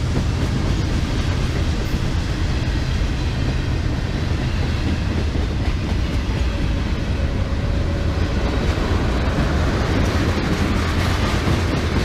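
Freight cars of a passing BNSF manifest train rolling by on the rails: a steady, continuous wheel-on-rail noise from boxcars, hoppers, flatcars and tank cars.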